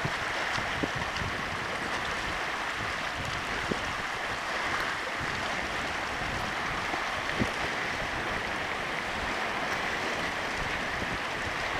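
Small Lake Superior waves lapping and washing against a rocky shoreline, a steady watery hiss with a couple of faint knocks.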